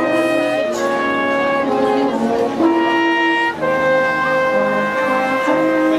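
Brass ensemble of trumpets, trombones and horns playing music in long held chords that change every second or two.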